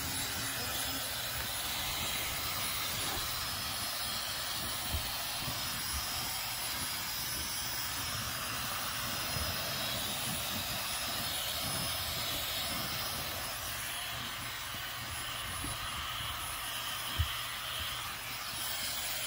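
Handheld hair dryer running steadily, a constant rush of air, with a brief thump near the end.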